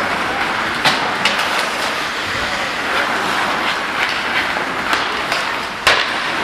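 Ice hockey play in a rink: a steady hiss of skates on the ice with sharp clacks of stick and puck, two about a second in and a louder one near the end.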